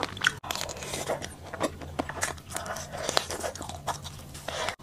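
Crunching and chewing of a tanghulu (candied fruit on a skewer) as its hard sugar glaze is bitten, a run of short, sharp crackles.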